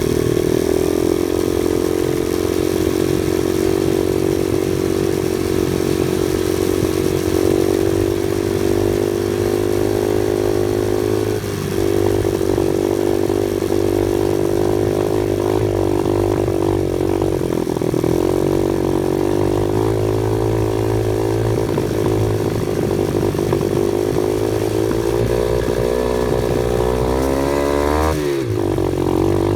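Off-road vehicle engine running under load, its revs rising and falling continually, with a brief drop about eleven seconds in and a quick dip and pick-up near the end.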